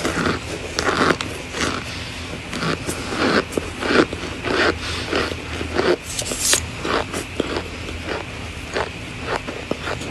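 Biting and chewing chunks of compressed cornstarch: a steady run of sharp crunches, about one to two a second.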